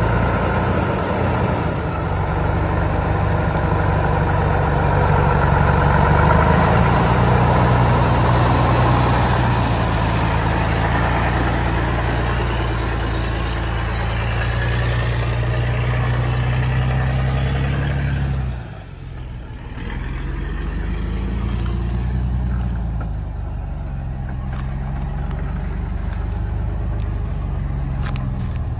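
Engine of a modified load-carrying truck running steadily. About two-thirds of the way through, the sound drops off briefly, then comes back with the engine speed rising and falling.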